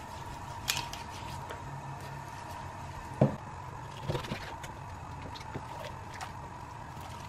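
Kitchen knife cutting through raw chicken joints on a wooden cutting board: a few scattered soft clicks and knocks, the loudest a little past three seconds in, over a low steady background hum.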